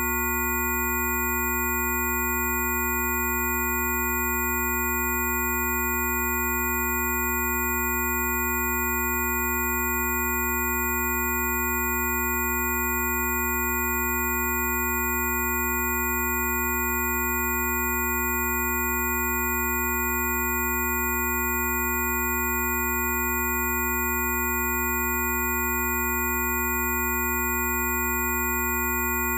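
Synthesized Rife-frequency tones: several steady pure electronic tones at different pitches sounding together without change, from a deep hum up to very high whines.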